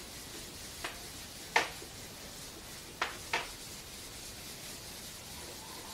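Whiteboard being wiped with a hand-held eraser: faint rubbing, broken by four sharp knocks, the loudest about one and a half seconds in and two close together about three seconds in.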